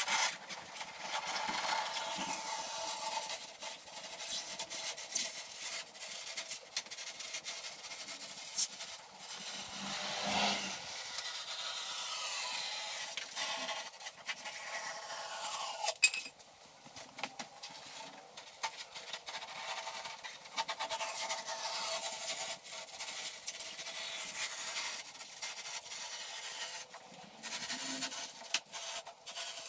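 A knife sawing and scraping along the edge of a glued foam boat hull, trimming off squeezed-out excess, with repeated squeaky strokes that fall in pitch. A single sharp knock about halfway through.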